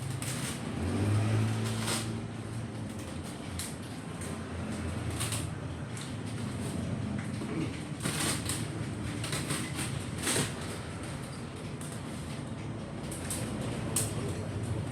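Scattered clicks and knocks of a Godox parabolic softbox and its parts being handled, over room noise, with a brief low hum about a second in.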